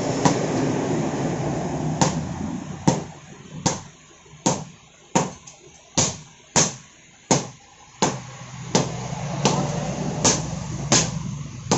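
Two strikers' sledgehammers hitting red-hot iron on an anvil in turn, hand-forging a knife blade held in tongs. The blows come at a steady rhythm of a little over one a second, more spaced at first and settling into the beat after a few seconds, over a steady low hum.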